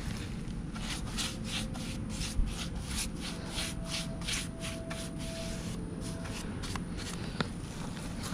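Paintbrush bristles swishing back and forth over a wooden tabletop while paint is brushed on, in quick even strokes about three a second that thin out near the end.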